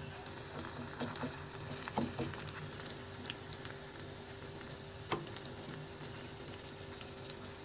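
Egg whites with cabbage frying in a little vegetable oil in a pan: a steady faint sizzle with scattered small pops and crackles.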